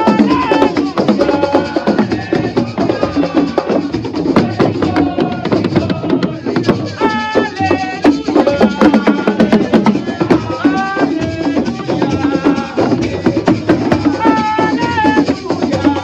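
A man sings into a microphone in short phrases over fast, dense hand drumming on goatskin hand drums.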